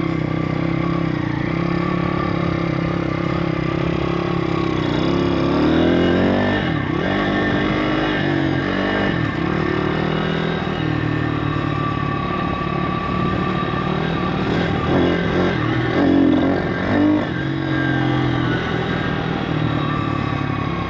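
YX 160cc four-stroke single-cylinder pit bike engine running under way, its note rising and falling several times with throttle and gear changes. It is ridden gently on a freshly fitted cylinder head while the head and valves bed in.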